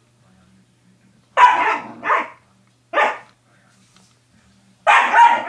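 Belgian Malinois puppy barking at a cat, a handful of short, loud barks in separate bursts with pauses between.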